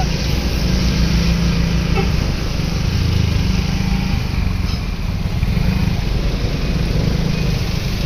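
Steady low rumble of vehicle engines running at low speed, with no horn melody.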